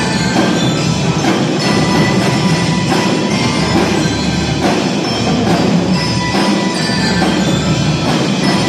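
School drum and lyre band playing live: snare and bass drums keep a steady marching beat while mallet keyboards ring out the tune.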